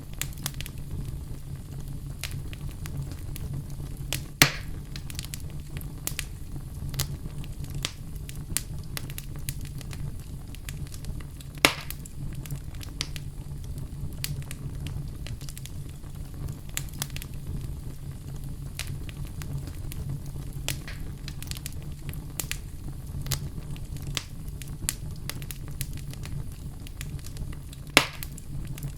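Wood campfire crackling: a steady low rumble of burning, with frequent small snaps. Three louder pops stand out, about four seconds in, near the middle, and near the end.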